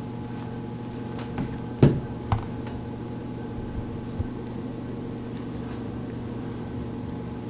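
Steady hum of a machine or appliance in the room, made of several fixed tones, with a few small clicks and taps from handling small plastic figure parts, the loudest about two seconds in.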